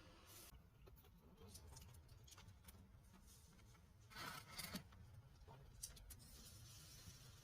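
Faint handling noises over near silence: scattered small clicks, and a brief rustling scrape about four seconds in.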